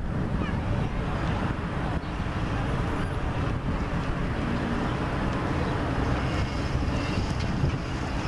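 Steady outdoor background noise: an even low rumble with a hiss above it, with no distinct events.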